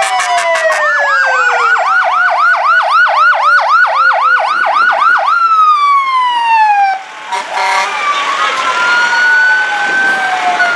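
Several fire truck sirens sounding together: a rapid electronic yelp for the first few seconds over long slow falling wails. A short horn blast comes about seven seconds in, then a wail rises slowly and falls again.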